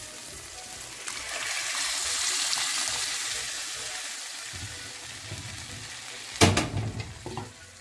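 Cooked dal poured into a hot pan of fried spinach, tomato and onion, sizzling: a hiss that swells about a second in and dies away over the next few seconds. A loud knock near the end.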